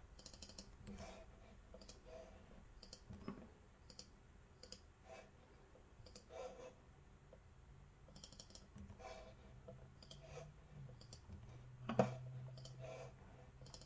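Faint, scattered clicks of a computer mouse and keyboard at irregular intervals, with one louder click about twelve seconds in.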